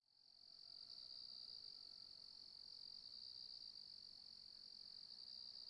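Faint night chorus of crickets: a continuous high chirring that fades in over the first moment and then holds steady.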